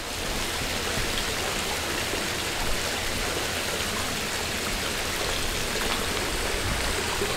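Steady, even hiss of splashing water.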